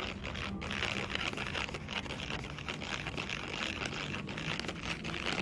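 A paintbrush stirring glue and colouring in a bowl: irregular scraping and sticky sounds over a steady background hum.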